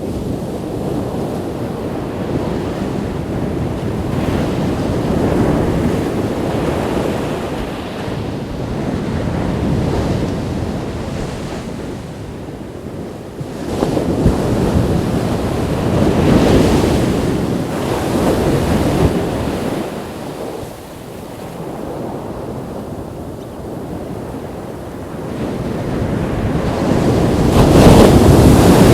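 Ocean surf breaking on a beach: a continuous wash of waves rising and falling, with surges about 14 and 16 seconds in and the loudest wave breaking near the end.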